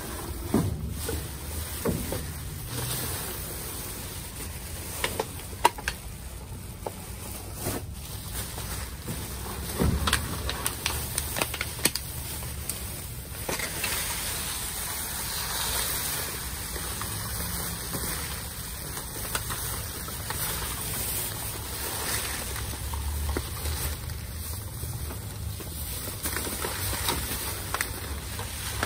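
Rummaging through trash in a dumpster: irregular rustling with scattered sharp knocks and clicks, over steady wind noise on the microphone.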